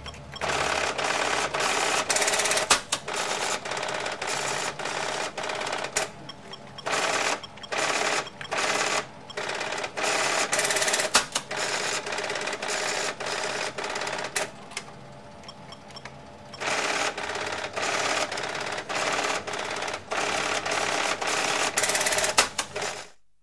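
1982 electronic cash register's receipt printer chattering in repeated bursts of one to two seconds, with short quieter gaps between runs, stopping near the end.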